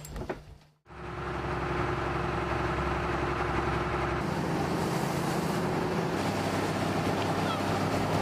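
Boat engine running steadily at speed, a low drone under the rush of water along the hull, starting about a second in.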